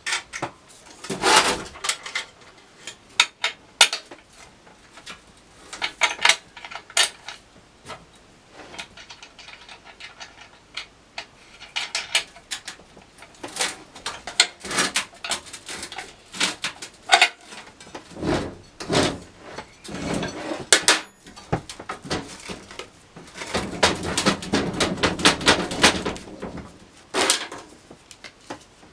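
Hand assembly work: irregular metal clinks, taps and knocks of parts and tools being handled, with a longer stretch of rattling about three-quarters of the way through.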